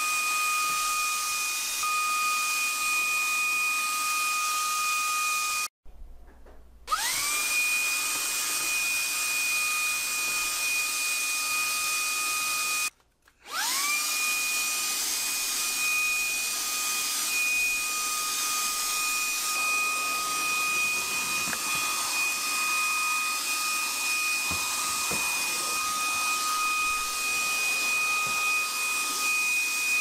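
Shark cordless handheld vacuum running: a steady rush of air under a high motor whine. It cuts out twice, about six and thirteen seconds in, and each time comes back with the whine rising to its steady pitch as the motor spins up.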